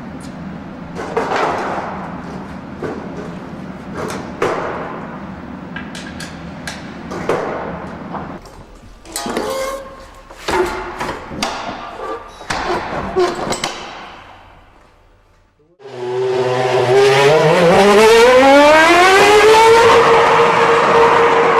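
Scattered knocks and clatter, then a loud Formula One engine, the BMW Sauber F1.06's 2.4-litre V8, comes in sharply and climbs steadily in pitch for about four seconds before holding a high, steady note.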